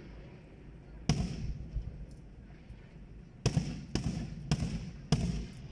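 Aerial firework shells bursting: a single bang about a second in, then four more in quick succession near the end, each trailing off briefly.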